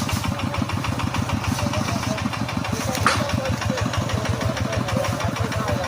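Engine running steadily in a fast, even putter, with one short sharp click about three seconds in.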